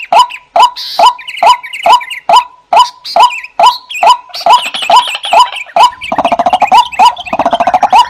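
Lure-call recording of paddy-field rails (watercock, white-breasted waterhen and crake): a short hollow call note repeated evenly about twice a second, with higher chirps over it. A fast rattling trill joins in about six seconds in and again near the end.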